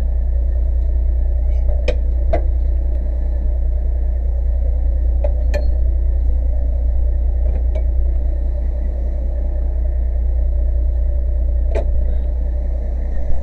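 Fire engine's motor running steadily at the scene, a loud low rumble that does not change, with a few short sharp clicks and knocks scattered through it.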